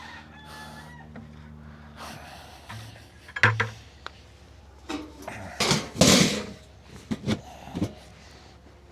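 Knocks and clanks of farm gear being handled, such as buckets or a latch, with a short clattering rattle about six seconds in. A low steady hum runs through the first two seconds.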